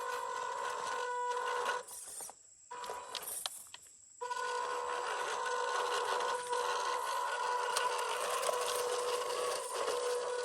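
Electric motor and gears of a 1/12-scale MN128 RC crawler whining steadily under throttle, with crackle and scrape from the tyres over the forest ground. The whine cuts out from about two to four seconds in as the throttle is released, then picks up again.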